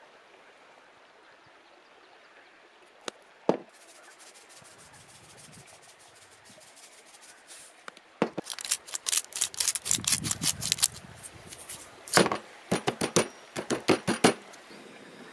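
Plastic salt shaker shaken over raw chicken breasts: quick, sharp rattling clicks in two runs over the second half, with a single knock and faint sprinkling before them.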